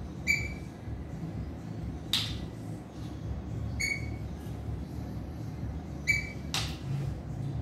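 A fork clinking against a metal mussel pot three times, two to three seconds apart, each clink ringing briefly. Two sharper, noisier clatters come in between, at about two seconds and just before the end.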